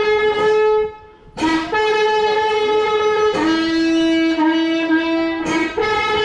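Music from a wind instrument holding long, steady notes, with a brief break about a second in and another near the end before the next note.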